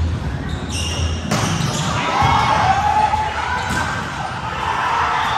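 Volleyball rally echoing in a gym hall: the ball being struck, with players calling out over it.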